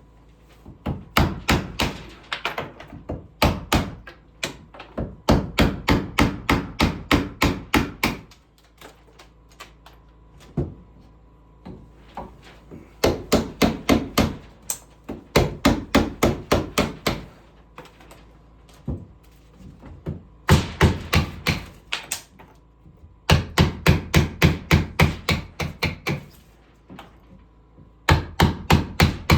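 Hammer striking wood in quick runs of about four blows a second, each run a few seconds long, with short pauses between runs.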